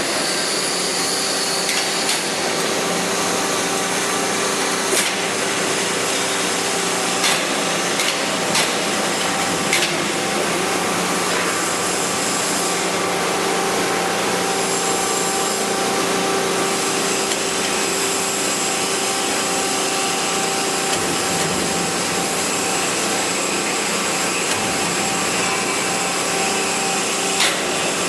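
Sheet-metal bending machine running: a steady mechanical hum and hiss with a few held tones, and several sharp clicks or clanks between about two and ten seconds in and one more near the end.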